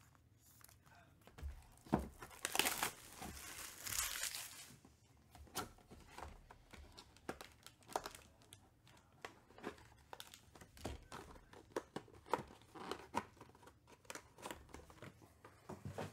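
Wrapping being torn off a trading-card box in two loud rips about two and a half and four seconds in, followed by rustling and light clicks of the cardboard box and its foam insert being handled.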